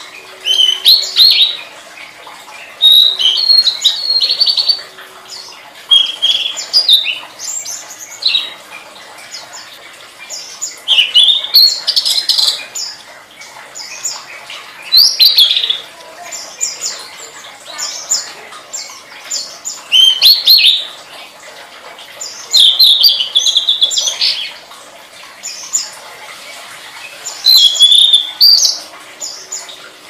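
Tledekan songbird singing: short, high twittering phrases, each a second or two long, repeated every few seconds with quieter gaps between.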